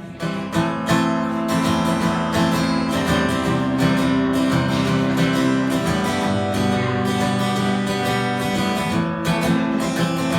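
Acoustic guitar strummed in a steady rhythm, playing a song's instrumental intro before the vocals come in.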